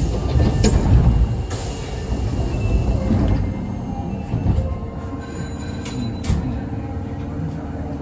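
Osaka Metro 22 series subway train heard from the cab at an underground station: a low rumble, heaviest in the first couple of seconds, with faint steady squealing tones over it.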